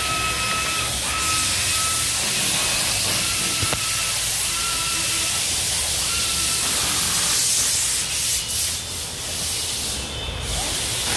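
Factory floor noise: a steady hiss, with a thin high-pitched whine from a machine that comes and goes in second-long stretches and stops after about seven seconds.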